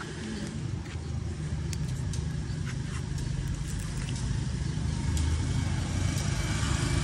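A steady low rumble that grows a little louder toward the end, with a few faint clicks.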